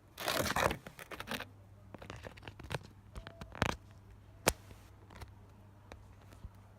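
Loud rustling and scraping handling noise close to the microphone in the first second, then scattered softer rustles and small clicks, with one sharp click about four and a half seconds in.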